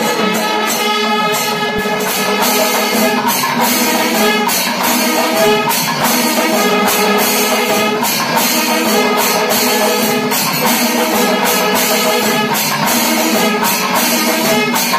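Music with an even percussion beat and jingling cymbals under a melody of held notes, steady throughout.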